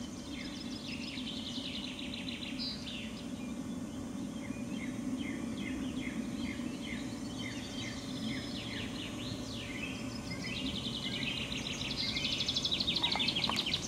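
Many small birds chirping in quick repeated phrases over a steady low rumble of background noise; the chirping grows denser and louder near the end and then stops abruptly.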